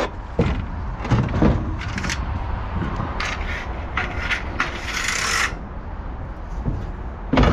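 Broken wooden and metal furniture debris being handled and shifted: a series of knocks and scrapes, a longer scraping rush about five seconds in, and a heavier knock near the end.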